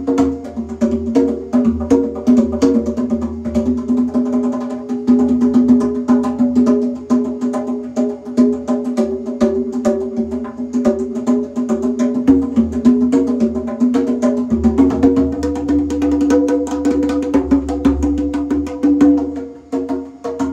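Congas played with bare hands in a fast, busy rhythm over backing music with sustained chords; the chord changes about two thirds of the way through.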